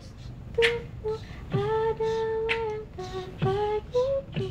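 A woman humming a slow melody in long held notes, over beatbox-style percussion: a few deep falling kicks and sharp snare-like clicks.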